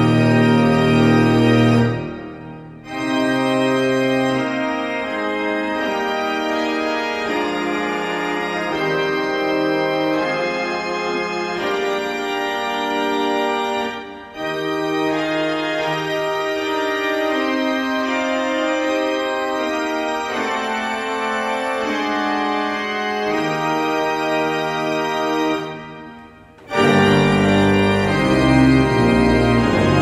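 Church organ playing sustained chords with a deep pedal bass. The chords break off about two seconds in and die away in the echo. The music goes on more lightly, with brief pauses about fourteen and twenty-six seconds in, before the full sound with deep bass returns near the end.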